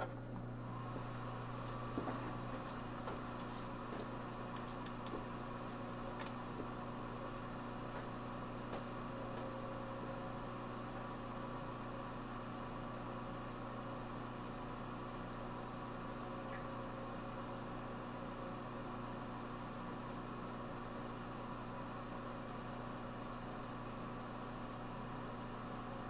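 Microwave oven running with a steady hum while heating a small CRT, with a few faint clicks in the first several seconds.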